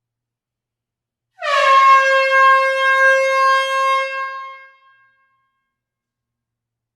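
A single air horn blast in an enclosed hall. It starts about a second and a half in, dipping slightly in pitch at the onset, then holds one steady tone for about three seconds before fading out.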